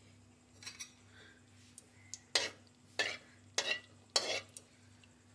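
Slotted metal spoon stirring cardamom pods in hot ghee, clinking and scraping against a metal kadhai. There are four sharp clinks about half a second apart in the second half.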